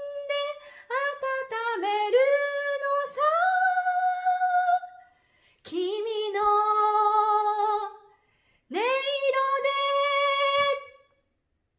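A woman singing a cappella, with no accompaniment. She sings a phrase of several notes ending in a long held note, then two more long held notes with short breaths between them. The voice stops shortly before the end.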